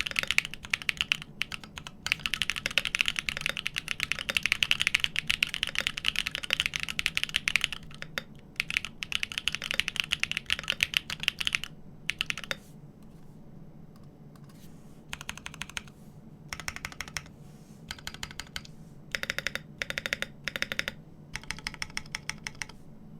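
Typing on a GEON FROG TKL mechanical keyboard with an aluminium plate and lubed Everglide Dark Jade Black switches on 72g slow springs. Fast, continuous typing for about twelve seconds, then short clusters of keystrokes with pauses between them.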